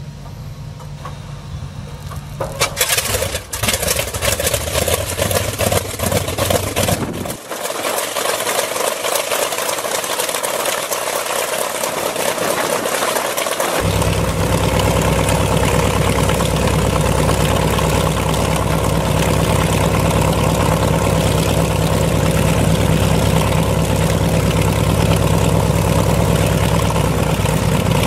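Douglas A-1 Skyraider's Wright R-3350 18-cylinder radial engine on a cold start: about two seconds in it fires up with loud, uneven popping and crackling, and from about halfway on it runs at a steady, low idle.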